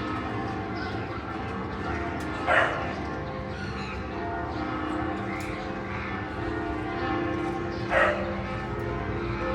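Church bells ringing continuously, their many tones overlapping and hanging on. A dog barks twice over them, once about two and a half seconds in and once near the end; the barks are the loudest sounds.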